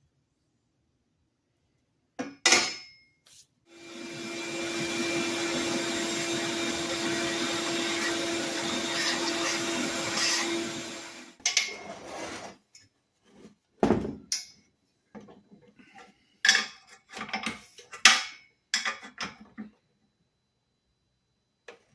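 A small electric power tool spins up and runs steadily for about seven seconds with a steady hum under the noise, then stops. This is followed by a series of short knocks and clatters of metal parts and tools being handled.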